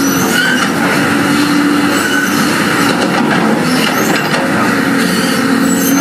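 D58E crawler bulldozer working, a steady diesel drone with short high squeaks and faint clanks from its steel tracks.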